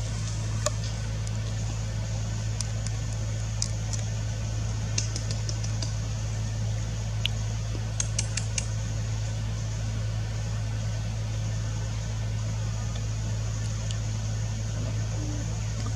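A steady low mechanical hum, with scattered brief ticks and clicks over it, a cluster of them about eight seconds in.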